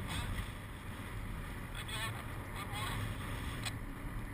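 Wind buffeting the microphone of a paraglider-mounted camera in flight, a steady low rumble, with a few short warbling sounds about two seconds in.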